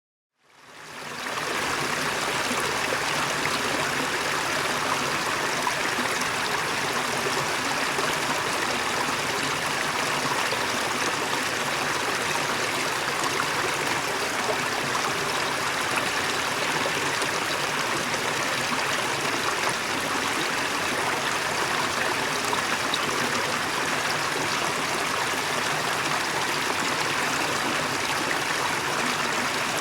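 Waterfall: a steady rush of falling water that fades in during the first second or so and then holds even.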